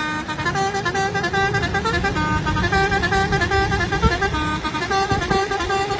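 Musical horn on a decorated bus playing a repeating tune of short notes that step up and down in pitch, over the low rumble of the bus and traffic.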